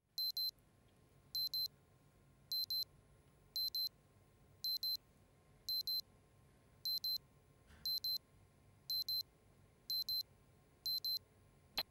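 Bedside alarm clock sounding its alarm: high electronic double beeps repeating about once a second, about ten times, followed by a single sharp click near the end.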